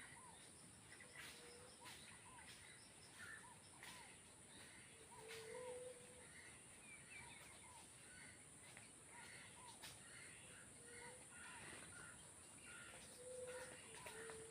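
Several birds calling faintly: short arched notes repeated about once a second, lower whistled notes and scattered chirps, over a steady high-pitched hiss.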